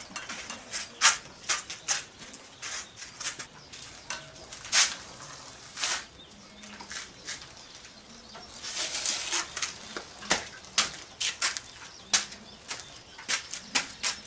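Irregular clicks, taps and scuffs as a motorcycle is wheeled by hand and footsteps in sandals move over concrete, with a denser flurry of handling noise about nine seconds in.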